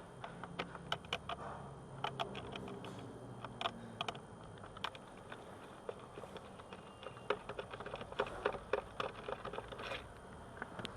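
Light, irregular clicks and taps of a screwdriver working the Phillips screws under the plastic steering-column trim.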